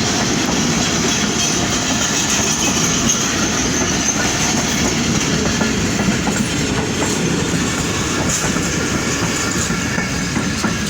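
Khyber Mail Express passenger coaches rolling past on the rails as the train arrives: a steady rumble with clickety-clack of the wheels over the rail joints.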